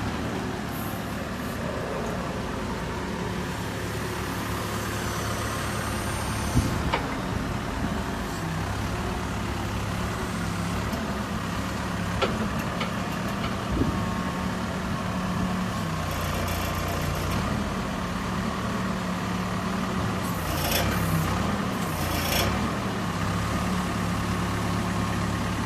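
Liugong backhoe loader's Perkins diesel engine running steadily, its pitch stepping up and down, with a few sharp knocks and short bursts of hiss.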